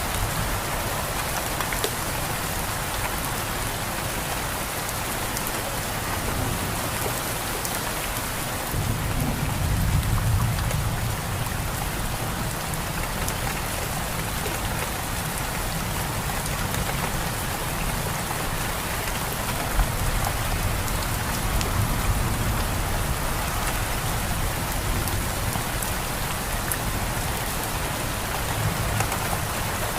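Steady rainfall, with a low rumble of thunder swelling about a third of the way in.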